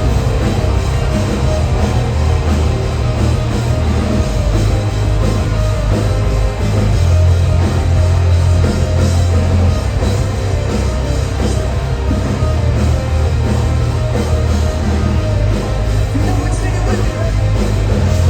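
Live metalcore band playing at full volume right after a count-in: distorted electric guitars, bass and drums with a heavy, continuous low end.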